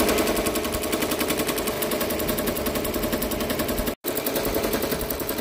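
Multi-needle embroidery machine stitching a design at speed: a rapid, even mechanical clatter of the needle bar, with a brief break about four seconds in.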